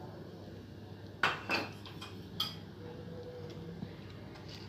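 Metal spoon clinking against a steel cooking pot: a sharp clink about a second in, then a couple of lighter clinks.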